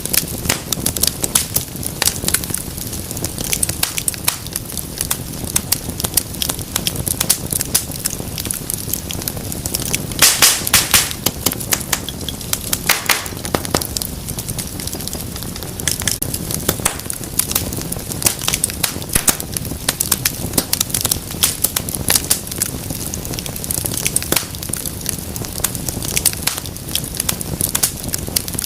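Wood fire crackling and popping steadily over a low rumble of flame, with a louder cluster of sharp pops about ten seconds in.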